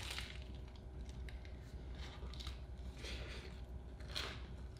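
Faint biting and chewing of a crispy baked bagel sandwich with melted cheese: a short crunch at the bite, then two soft crackles near the end.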